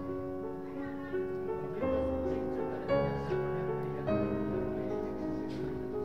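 Background instrumental music of held chords that change every second or so.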